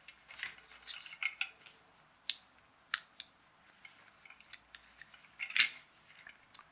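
Small plastic clicks and taps as a dismantled plastic toy car is handled and turned over in the hands, with a louder knock about five and a half seconds in.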